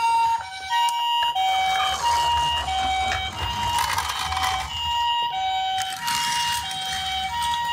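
Toy ambulance's electronic two-tone siren, alternating a higher and a lower note about twice a second, with a rushing noise that swells twice beneath it.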